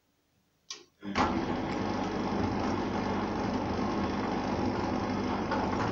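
Arçelik 3340SJ front-loading washing machine starting a wash turn. After a short knock, the drum starts turning about a second in and runs on steadily, tumbling the wet load.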